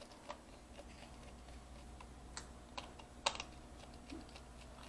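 Faint, scattered light clicks and taps of small screws and a screwdriver on a laptop's plastic bottom case as the screws are put back in, a handful of sharp ticks, the loudest a little past the middle.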